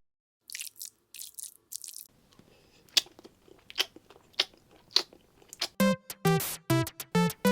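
Close-miked crunchy bites and chewing of food, sharp crunches coming about every two-thirds of a second after a couple of seconds of faint crackling. Near the end a few short, bright musical notes sound in quick succession.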